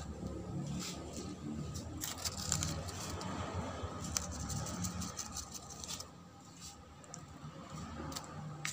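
Soft scrapes and light clicks of a plastic spoon scooping seasoning from a plastic tub, quieter in the last few seconds.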